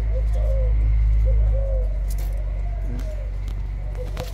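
Caged Thai spotted doves giving several short, soft coos over a steady low hum, with a single click near the end.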